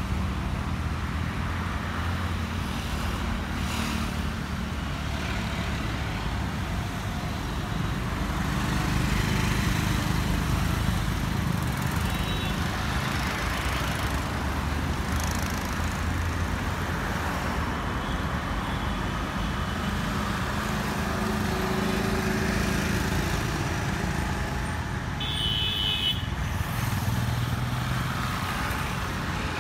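Road traffic on a wide multi-lane road: cars and motorcycles passing one after another in a steady wash of engine and tyre noise that swells and eases as vehicles go by. A brief high tone sounds near the end.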